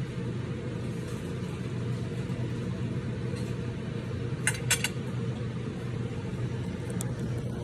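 Stove's blower fan running with a steady low hum; it switched on by itself when the stove got too hot and won't turn off. A couple of faint clicks partway through.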